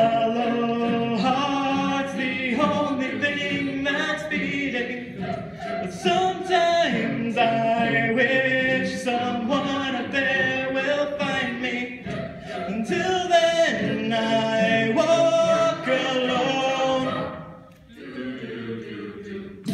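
A cappella vocal group singing in close harmony without instruments, a male lead at the microphone over the mixed choir's backing voices. The singing drops away briefly near the end and comes back more softly.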